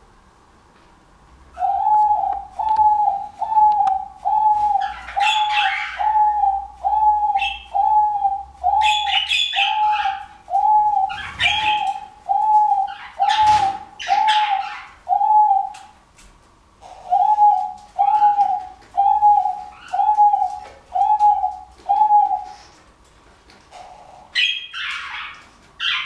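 Male diamond dove's courtship display cooing: a long run of short, evenly spaced coos, about one a second, then a pause of about a second and a shorter run. Brief higher, hissy sounds come over the coos now and then and again near the end.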